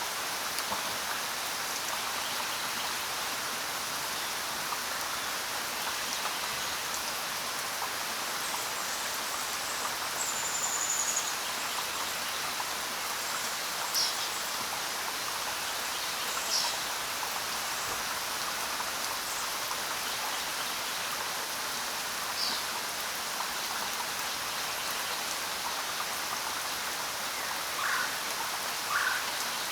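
Steady rain falling, with a few short bird chirps scattered over it, including a brief falling whistle.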